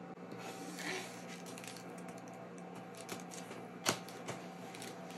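Washi tape being pressed down and smoothed onto the clear plastic film of a diamond-painting canvas: light scattered taps and crackles of fingers on tape and plastic, with one sharper click about four seconds in.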